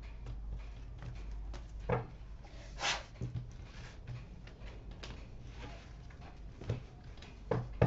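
Tarot cards being shuffled and laid down on a cloth-covered table: soft scattered flicks and taps, with a few louder slaps, over a faint steady low hum.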